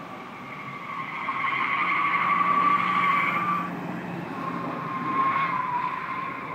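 Tyres of a BMW E91 3 Series Touring squealing as it corners hard round a tight circle at the limit of grip. The squeal swells about a second in, eases a little before four seconds, and rises again briefly near the end.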